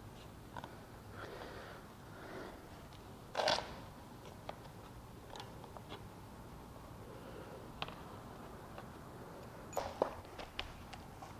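Faint clicks and scrapes of hands working a pressure washer's plastic air box loose from the engine, with one short, louder rustle about three and a half seconds in and a quick cluster of clicks near the end.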